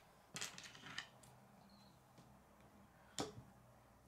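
Plastic K'nex rods and connectors clicking as they are handled and pressed together: a few faint clicks about half a second in, and one sharper click a little after three seconds.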